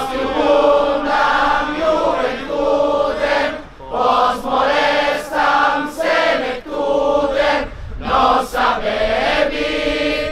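A group of men and women singing together in unison, a chant-like song sung in short phrases with brief pauses between them.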